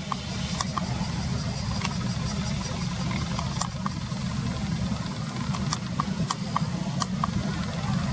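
A steady low rumble, with short high chirps and ticks scattered through it, about a dozen in all.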